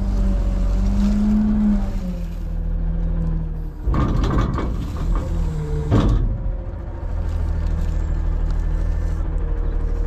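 Front-load garbage truck's engine and hydraulics running steadily while packing, the pitch rising briefly in the first second or two and then settling. About four seconds in comes a couple of seconds of loud rattling clatter, then the steady running carries on.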